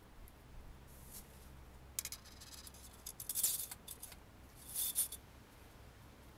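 Engine oil dipstick being handled in its tube while the oil level is checked during refilling: a run of small clicks and scrapes about two seconds in, then a short rasp a little before the five-second mark.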